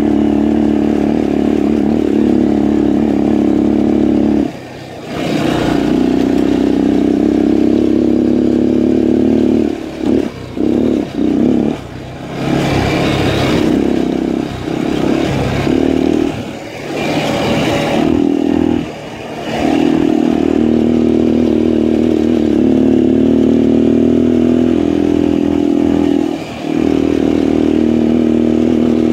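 Honda XL250's single-cylinder four-stroke engine running under way, with the throttle rolled off briefly several times: once about four seconds in, a quick cluster around ten to twelve seconds, and again near sixteen, nineteen and twenty-six seconds. A few short stretches of rushing noise come and go over it.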